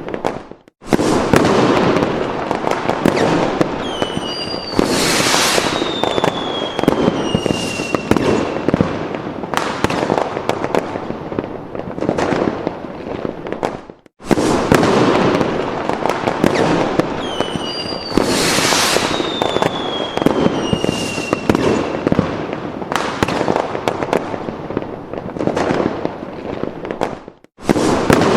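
Fireworks sound effect: a dense run of bangs and pops with whistling rockets falling in pitch. The same stretch of about thirteen seconds plays twice, each time starting again after a brief dropout.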